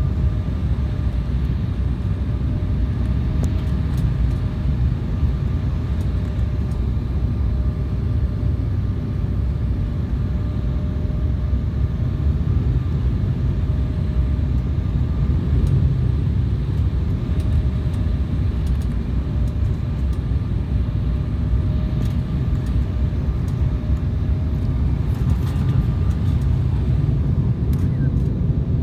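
Steady airliner cabin noise: a deep, even rumble of engines and airflow with a faint steady hum over it, heard from inside the cabin.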